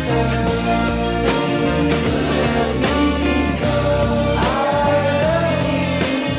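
Background music: a song with guitar and a singing voice over a steady beat.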